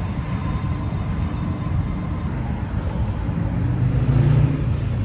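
Street traffic noise: a steady low rumble of passing vehicles that grows louder near the end.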